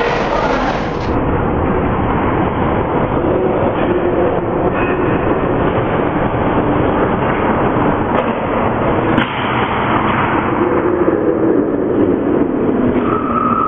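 Loud, rumbling ice-rink noise of a hockey game in play: skates and sticks on the ice in an echoing arena, with a sharp knock about nine seconds in.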